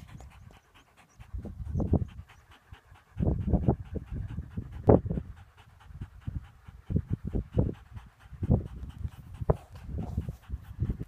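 A dog panting in quick runs of short breaths, with pauses between.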